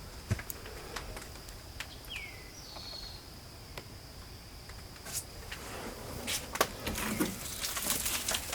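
A steady high-pitched insect drone, with a few short falling bird chirps in the first three seconds. From about five seconds in, footsteps and debris crunching underfoot grow busier.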